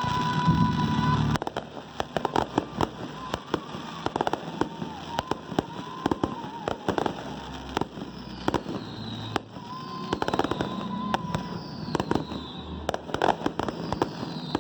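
Aerial fireworks crackling and popping in dense rapid clusters, after a loud low rumble that cuts off suddenly about a second and a half in. Over the second half a series of short falling whistles rises above the crackle.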